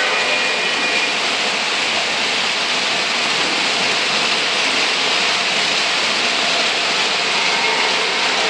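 O gauge model trains rolling on three-rail track: a loud, steady rolling noise of metal wheels on the rails and the motors driving them, with no breaks or separate knocks.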